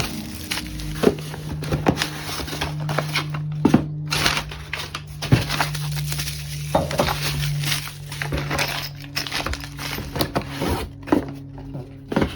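Cardboard boxes and packaging being handled and opened: crinkling with a string of small knocks and taps, under a steady low hum.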